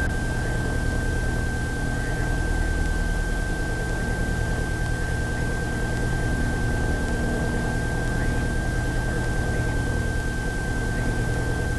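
Steady hiss and low hum on a light aircraft's cockpit radio/intercom audio feed between radio transmissions, with a steady high-pitched whine throughout.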